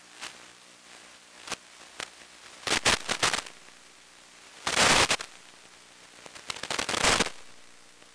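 Crackling radio static on the audio of an analog FPV video receiver: a few sharp clicks, then three louder crackly bursts of half a second to a second each over a steady hiss and hum.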